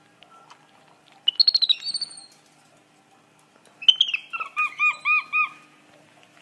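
Young capuchin monkey calling: a burst of quick high squeaky chirps, then, about two seconds later, a run of about five quick arching whistled notes.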